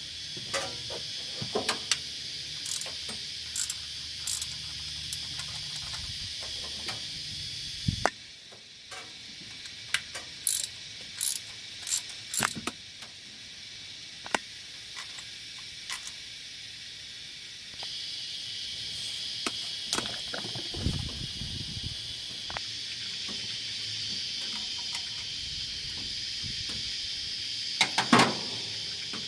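Ratchet wrench clicking in short runs, with metal tools knocking, as the thermostat housing bolts are undone. A steady high-pitched drone runs underneath; it stops for a stretch in the middle and then comes back.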